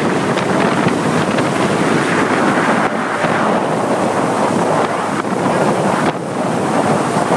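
Loud, steady rush of wind buffeting the microphone over water noise from a fishing boat running at speed, with a few brief dips in level.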